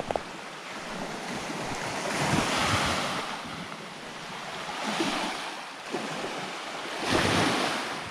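Small lake waves washing onto a pebble beach, swelling and falling three times, every two seconds or so.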